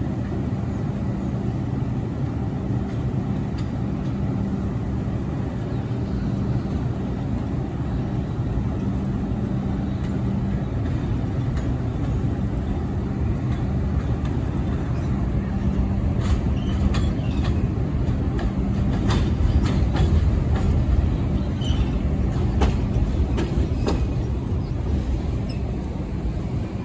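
New York City subway train on the 2/5 line running through the station: a steady low rumble with a held hum, then a run of sharp clicks from the wheels in the second half as it gets loudest.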